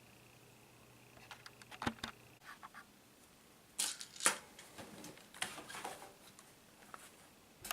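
Small plastic and metal clicks and knocks from laptop parts being handled during disassembly: a quick run of light clicks, a louder pair of knocks about four seconds in, some scraping, and one sharp click at the end.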